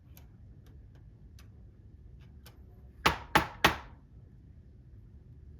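Three sharp taps about a third of a second apart, loud against the background, from tool work on a clock bushing at a repair bench, with faint small clicks before them.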